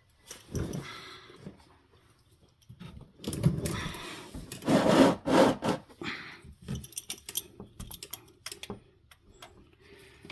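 Hand-tool work: an adjustable wrench rubbing and scraping on the oil pressure switch as it is worked loose, then a run of small sharp clicks and taps.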